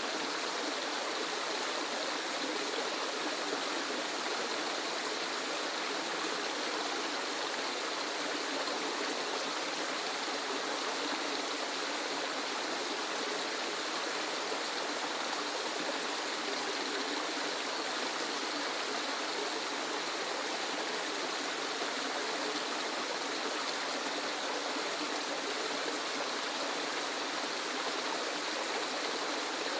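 Waterfall: a steady, unbroken rush of falling water, more hiss than deep rumble.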